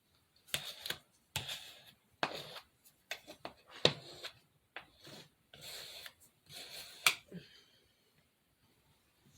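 Hands working with craft materials at a table: a run of short rustles, scrapes and sharp clicks for about seven seconds, then it goes quiet.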